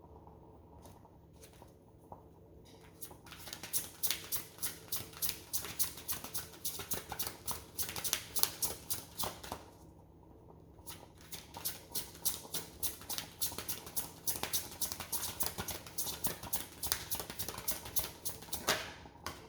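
Deck of tarot or oracle cards being shuffled by hand: a fast, even patter of card clicks, about five a second, in two runs with a short pause about ten seconds in.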